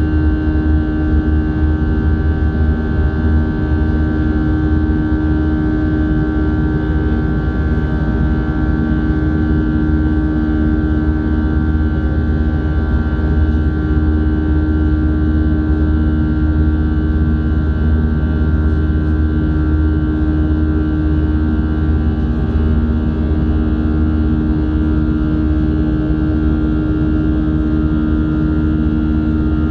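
Steady in-flight cabin noise of an Airbus A320-211 beside its CFM56-5A1 turbofan engine. It is a loud, even rumble of engine and airflow, with a constant hum and several steady tones above it.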